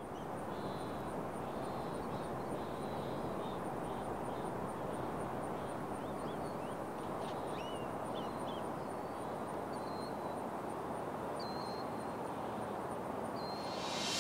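Outdoor ambience: a steady background hiss with small birds chirping and whistling, scattered short calls.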